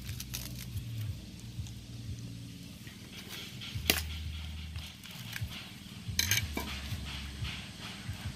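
Large knife chopping into the husk of a young green coconut: one sharp chop about four seconds in and a couple more just after six seconds, with lighter knocks between.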